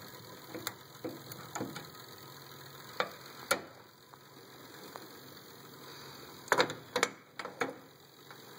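Small metal clicks and clinks of hands handling a wrench and adjusting a steel stopper on a piston wrist-pin fixture: a few scattered taps, then a quick cluster of sharper clinks near the end, over a steady faint hiss.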